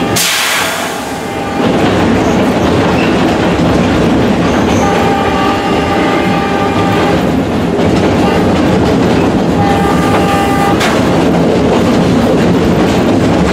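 Air horn of EMD GP38 diesel locomotive 7706 heard from inside its cab: one long blast of about two seconds, then a short one about three seconds later. Under it runs the steady noise of the locomotive's engine and of the train rolling along the track.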